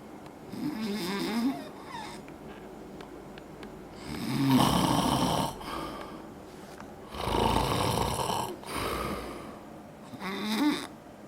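Heavy snoring: four loud, rattling snores about three seconds apart, with quiet breaths between them. The uploader puts the snoring down to age.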